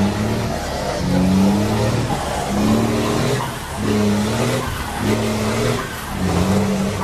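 Diesel truck engine brake firing in repeated bursts, about six in a row, each a steady pitched bark lasting under a second before the next.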